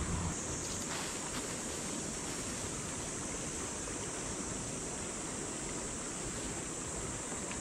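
Steady rushing of a river flowing, with a few faint rustles of tarp fabric being handled about a second in.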